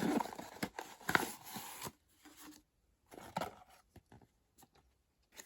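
Paper or plastic packaging being handled and opened by hand: irregular rustling, crinkling and small clicks, busiest in the first two seconds, then a few sparser rustles.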